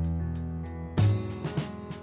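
Background music: sustained bass and guitar notes with a sharp drum hit about a second in and another near the end.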